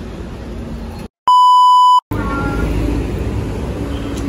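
A single loud, steady electronic beep tone lasting under a second, cut in with a moment of dead silence on either side, over background room noise.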